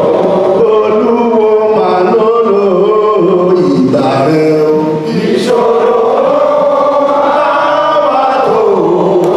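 A group of voices chanting together in long held, gliding phrases, with a short break about five seconds in.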